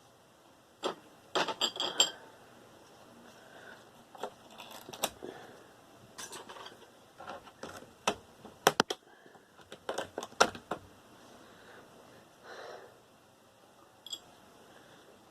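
Small metal scrap parts clinking and clattering in irregular sharp clicks as they are handled and dropped into a jar, the loudest clinks coming in clusters about a second in and again past the middle.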